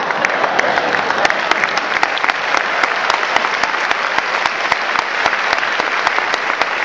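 Large audience applauding: dense, steady clapping from many hands.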